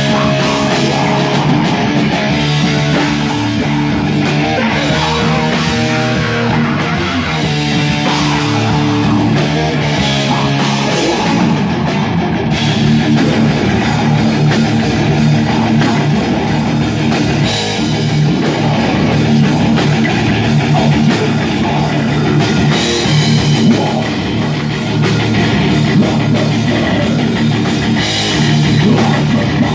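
Thrash metal band playing live: distorted electric guitars, bass guitar and drum kit. The riff changes about twelve seconds in.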